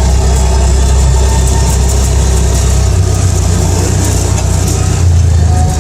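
A motor vehicle engine running continuously with a deep, low hum while driving. Its pitch shifts about three seconds in and again near the end.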